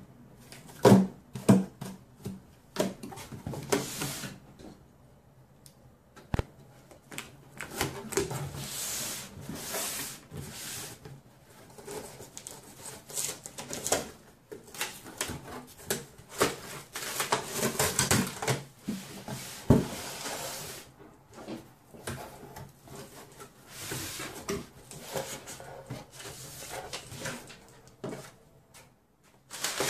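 Cardboard shipping box handled and opened by hand: irregular knocks, taps and scrapes of the flaps and sides. Near the end, crumpled brown packing paper rustles as hands dig into it.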